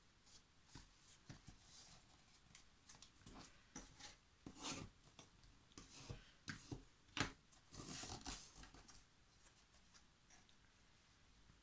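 Faint handling of cardboard and paper: light scattered taps, rubs and rustles as the glued pieces are held and pressed. The busiest stretch is in the middle, with the sharpest tap about seven seconds in.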